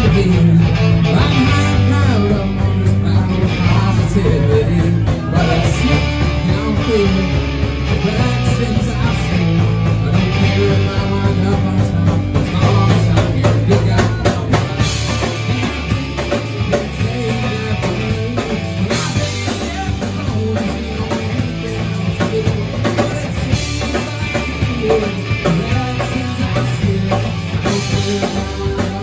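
Live rock band playing a song with electric guitar, electric bass, acoustic guitar and drum kit, and a man singing.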